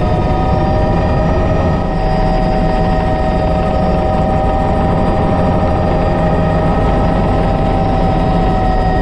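Bell 206 JetRanger helicopter heard from inside its cockpit in flight: the turbine engine's steady high whine over dense low rotor and engine noise.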